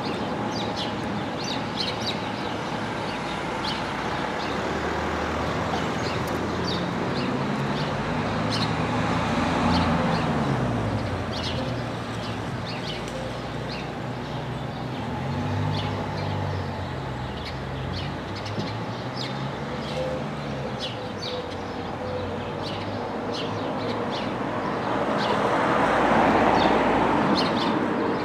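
Small birds chirping over passing road traffic. Cars go by with a hum that rises and falls, loudest about ten seconds in and again near the end.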